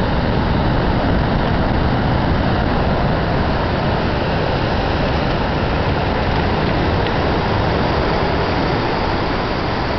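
Steady, loud rushing noise of Alamere Falls pouring onto the beach mixed with the breaking Pacific surf, an even wash with no breaks.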